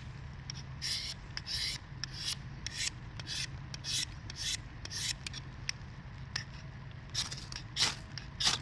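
Ferrocerium rod (fire steel) scraped with a striker in a dozen or so short, quick strokes, about one every half second, with a brief pause partway through. The strokes throw sparks onto a Trangia spirit burner to light it.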